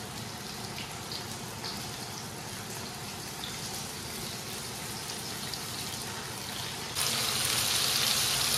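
Flour-dredged perch fillets frying in hot oil in a skillet, a steady sizzle with small crackles and pops. The sizzle gets suddenly louder about seven seconds in.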